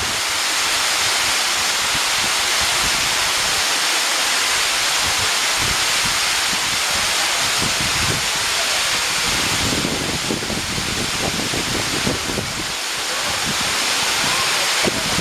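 Waterfall, water pouring down in a steady rushing hiss, with low uneven rumbling underneath that grows stronger from about ten seconds in.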